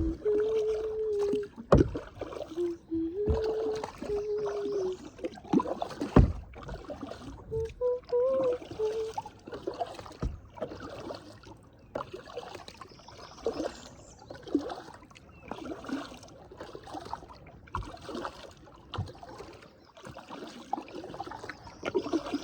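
Kayak paddling: paddle blades dipping and dripping water, with a few sharp knocks of paddle on hull, the loudest about 6 s in. A few held low notes sound in the first five seconds and again briefly about 8 s in.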